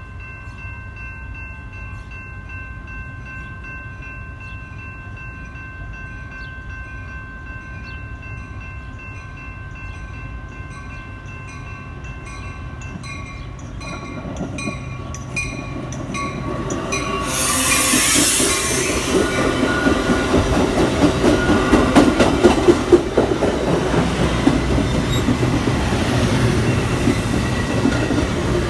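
Metra commuter train approaching and then running close past along the platform: steady high tones and light regular ticking at first, a loud burst of hiss as it arrives, then a loud rumble with wheels clicking over the rail joints.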